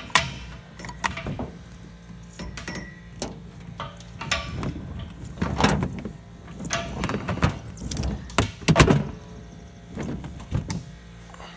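Irregular clunks, knocks and rattles as a portable air compressor is carried by its frame handle and its red rubber air hose is uncoiled, the loudest knocks near the middle and about three-quarters through, over a low steady hum.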